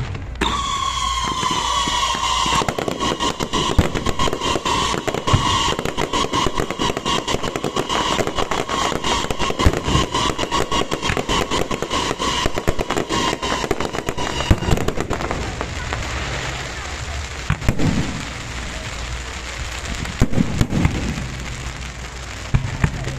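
Fireworks display: a dense, rapid barrage of crackling bangs for about fifteen seconds, with a steady whistle sliding slowly down in pitch over it. The bangs then thin out, with voices near the end.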